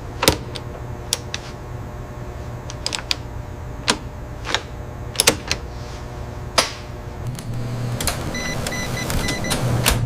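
Industrial machinery with a steady low hum and about a dozen sharp metallic clicks and clanks at irregular intervals. Near the end a louder rushing noise swells, over a rapid stuttering beep.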